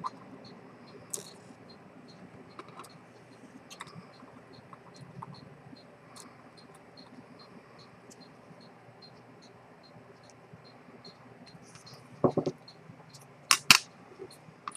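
Faint, steady ticking of a running vintage Rolex 6694 watch movement, a few ticks a second, with small clicks of metal tools on the movement. There are three louder sharp knocks near the end.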